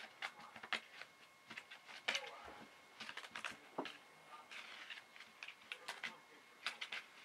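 Crumpled paper ball crackling and skittering as a kitten bats, grabs and bites at it on carpet: an irregular run of light clicks and rustles.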